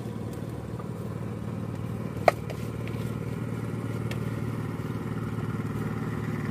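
A motorboat engine running steadily as the boat passes, getting slightly louder. There is a single sharp clink about two seconds in.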